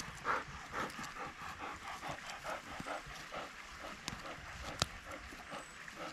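Wire-haired pointer panting quickly and steadily, about three breaths a second, with one sharp click about five seconds in.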